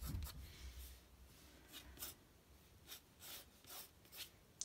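Pencil sketching on drawing paper: a faint series of short, light scratching strokes, roughly one or two a second, with a soft low thud on the desk at the start.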